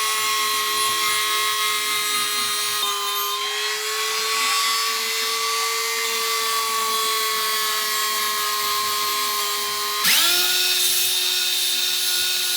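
Electric drill with a Velcro sponge sanding pad running at a steady speed, sanding the steel axe head; its whine wavers slightly in pitch as the load changes. About ten seconds in it breaks off to a louder, slightly lower-pitched power-tool whine that starts up and runs steadily.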